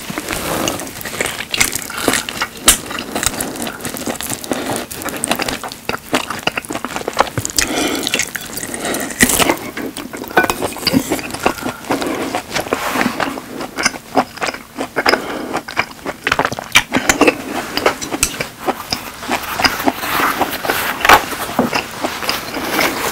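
Close-miked eating of a thick grilled beef steak: biting and chewing mouth sounds, a dense run of irregular sharp clicks and crackles.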